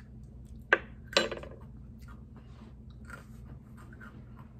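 Close-miked eating from a spoon: two sharp crunching snaps about a second in, the second louder, followed by quieter chewing and mouth clicks.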